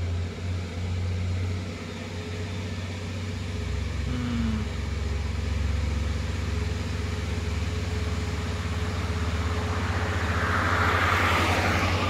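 Diesel engine of a heavily decorated Isuzu dump truck running under power as the truck approaches, its steady, pulsing low note growing louder. A hissing rush comes in about ten seconds in.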